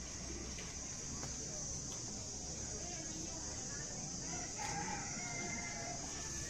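A bird calling once, a call of about a second starting about four and a half seconds in, over a steady low hum.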